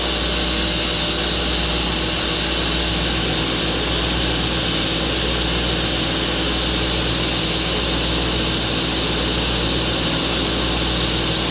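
Belt-driven table saw running steadily at speed, motor and arbor humming evenly with no clicking, now that the motor's pot-metal V-groove pulley is lined up with the arbor pulley and its set screw tightened.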